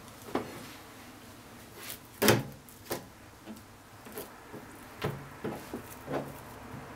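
Chunks of raw beef shank and a kitchen knife being moved about on a plastic cutting board: about half a dozen scattered knocks and taps, the loudest about two seconds in.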